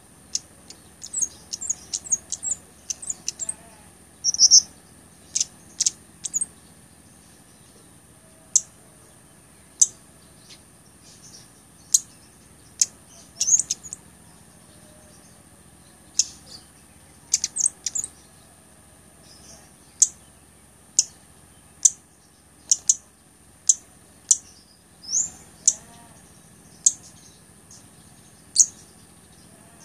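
Caged cabai gunung (mountain flowerpecker) calling: a string of short, sharp, high-pitched chirps, some single and some in quick little clusters, with gaps of a second or more between many of them.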